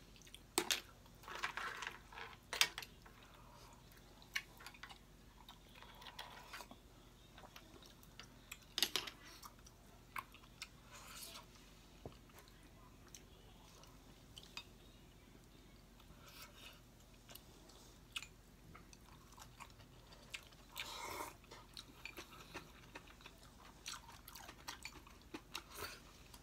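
Close-up eating sounds: chewing and crunching on instant noodles, kimchi and crunchy pickled yellow radish, with scattered short clicks and a few louder bites.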